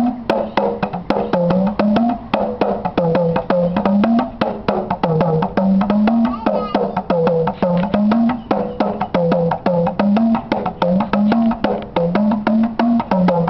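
Tama, the Senegalese talking drum, played solo: fast, sharp strokes on the drumhead. The low note slides up and down in pitch as the cords are squeezed under the arm, in a phrase that repeats about every second and a half.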